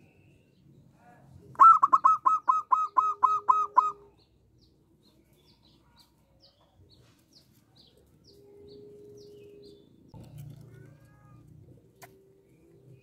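Zebra dove (perkutut) calling: a rapid run of about ten short, clipped notes over about two seconds, starting about a second and a half in. Faint chirps of small birds follow.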